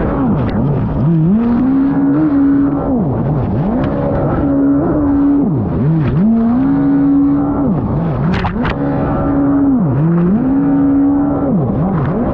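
Racing jet ski engine running hard, its revs dropping sharply and climbing back about five times as the throttle is chopped and reapplied through turns, over the rush of water spray. A couple of sharp slaps of the hull on the water come about two-thirds of the way through.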